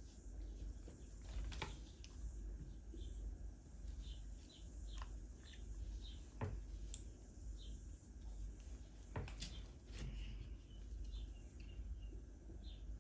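Scattered small clicks and taps as seashells and a hot glue gun are handled and shells are pressed down onto cardboard, over a low steady hum. Faint short high chirps come and go throughout.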